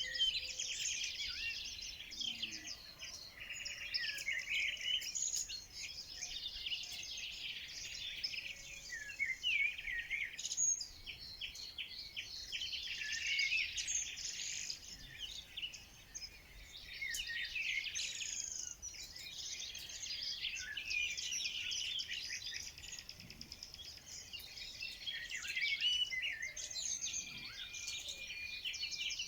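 Many songbirds singing and chirping at once, a dense chorus of overlapping high chirps and trills.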